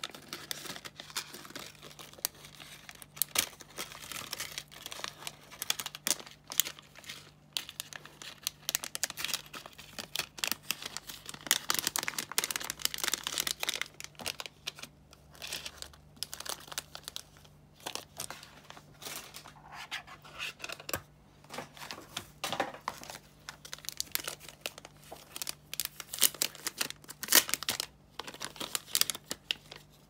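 Thin plastic packaging bags crinkling and crackling irregularly as small jewellery and hair accessories are handled and unwrapped.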